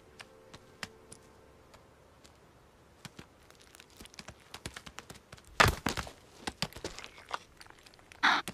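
Rutting male markhor on a rocky cliff: scattered clicks of hooves on stone, building about halfway through into a quick run of loud knocks and clatters as the males clash horns and scramble, with a short scraping rush near the end.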